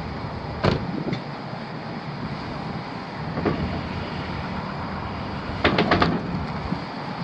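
Pickup truck's 5.3-litre V8 idling steadily, with a few sharp clicks and knocks over it and a quick run of them about six seconds in.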